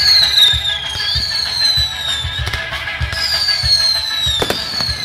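Whistling fireworks climbing one after another. Each gives a high whistle about a second long that falls in pitch, and one sharp bang comes near the end. Underneath runs show music with a steady beat of about two thumps a second.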